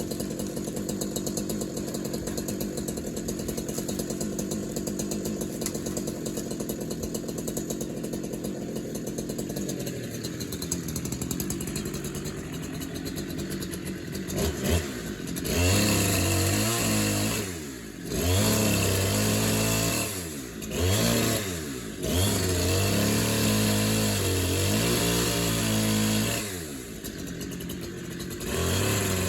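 Chainsaw engine idling steadily, then from about halfway revved hard in repeated runs. The pitch sags and recovers, with short drops back between runs, as in cutting through a tree.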